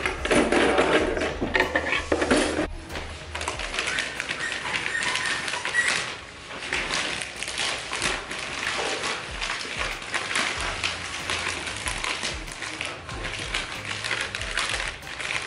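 Packing paper crinkling and rustling as objects are wrapped by hand, with many small crackles.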